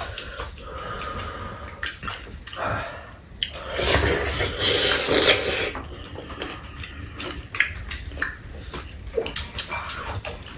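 Slurping of soup broth from spoons, longest and loudest about four to six seconds in, with the small clicks of spoons against the bowls.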